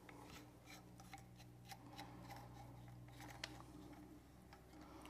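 Near silence with faint, scattered clicks and taps of a plastic float valve being handled and pushed into place through the side of a toilet cistern, one slightly sharper click about three and a half seconds in. A low steady hum runs underneath.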